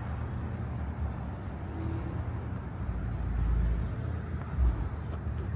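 Ford Crown Victoria's 4.6-litre V8 idling with a low rumble that swells a little now and then, its exhaust tailpipes cut off.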